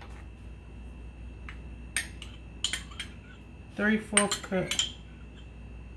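A few sharp, separate clinks of a small ceramic ramekin against a glass mixing bowl as thick ranch dressing is tipped and shaken out into the bowl.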